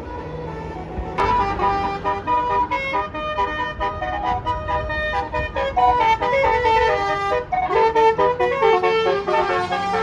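A bus's multi-trumpet Basuri telolet air horn plays a fast melody of short, changing notes, starting about a second in. Before that there is a low steady hum from a vehicle engine.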